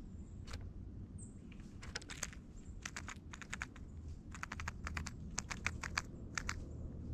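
Birds at a feeder pecking and hammering at seeds: a run of sharp taps and clicks in quick clusters, busiest in the second half.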